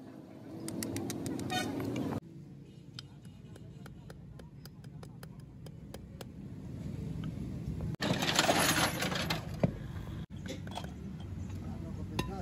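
Light metal taps and clinks as a Fiat 480 tractor's differential case and its parts are handled and struck with a hammer during reassembly, with a louder noisy stretch about eight seconds in.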